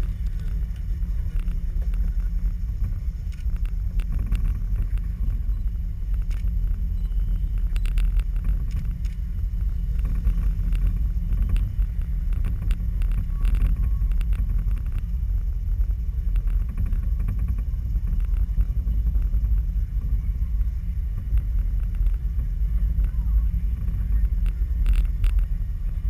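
Steady low rumble of a moving cable car cabin riding along its cables, with a few faint clicks.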